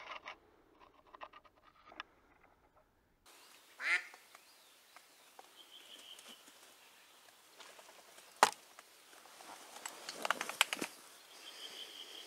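Live decoy hen duck quacking to call in drakes: one loud falling quack about four seconds in, then a quick run of quacks near the end. A single sharp click comes between them and is the loudest moment.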